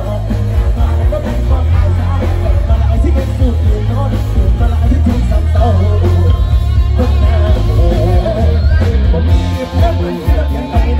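Live band music with a male singer singing into a microphone, played loud through the stage PA with heavy bass.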